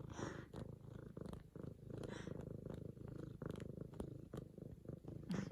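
F2 Savannah cat purring steadily and close up while kneading, with small clicks scattered through the purr.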